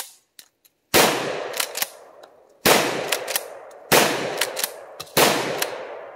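Four shots from a 12-gauge RIA Carina pump-action shotgun, spaced a little over a second apart, each followed by a long fading echo. Short clicks between the shots are the pump being racked to chamber the next shell.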